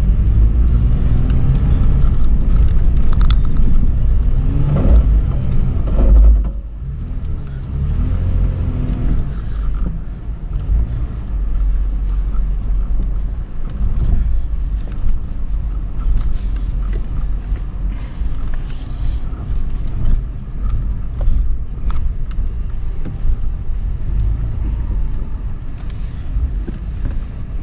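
2013 Toyota 4Runner's 4.0-litre V6 revving hard under load on a sand dune climb for about six seconds, then easing off sharply. It picks up briefly again about eight seconds in, then runs steadily at lower revs.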